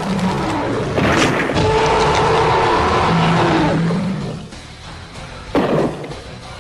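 Kaiju-fight sound effects over dramatic music: a heavy hit about a second in, a long drawn-out monster roar, then another hit near the end.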